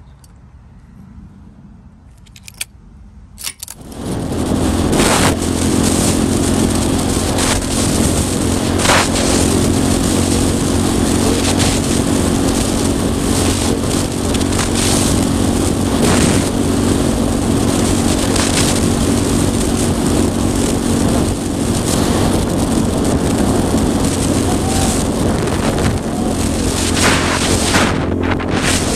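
Suzuki DR-Z400 single-cylinder motorcycle being ridden at a steady speed, its engine running evenly under loud wind rush on the helmet-mounted microphone. The sound cuts in suddenly about four seconds in, after a few quiet seconds with a couple of clicks.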